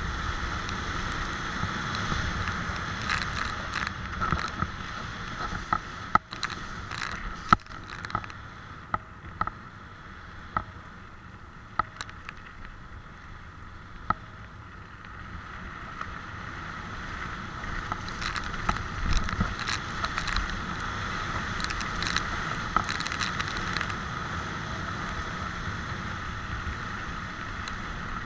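Bicycle tyres rolling fast over a wet gravel and dirt trail, with sharp knocks and rattles as the bike hits bumps. It goes quieter for several seconds in the middle, then the rolling noise builds again.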